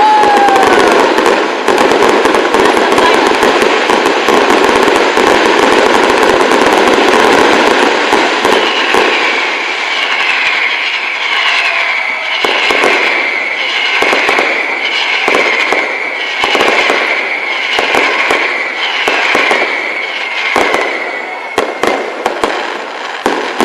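Fireworks going off: a dense run of crackling firecracker bangs for the first several seconds, then about a dozen short whistles in a row, each dropping slightly in pitch, with sharp pops among them.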